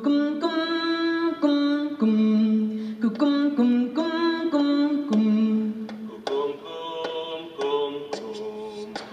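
A cappella choir singing a melody in held notes that step from pitch to pitch.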